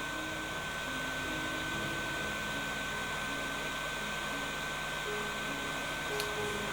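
Hot air gun blowing steadily: an even rush of air.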